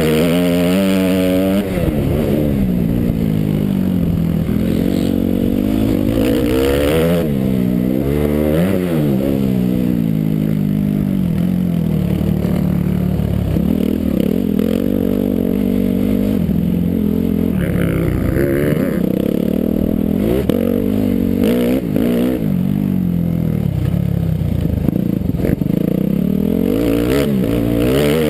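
Suzuki RM-Z motocross bike's single-cylinder four-stroke engine, heard from the rider's helmet, revving up and dropping back again and again as the rider opens and closes the throttle and shifts gears around the track.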